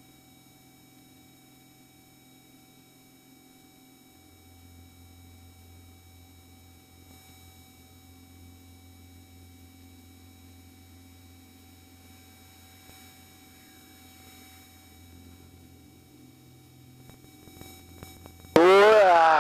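Faint steady electronic hum with several fixed high tones, like an aircraft intercom feed, over a low drone that drops in pitch about four seconds in. Near the end, a man lets out a sudden loud, wavering shout as he strains.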